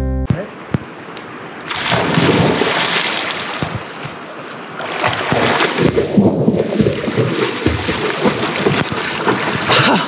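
Water splashing and sloshing as people swim in a river, in irregular bouts with short lulls.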